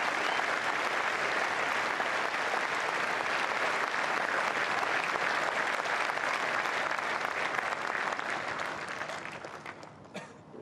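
Crowd of spectators applauding steadily, a dense wash of clapping that tapers off near the end, with a last few scattered claps as it dies away.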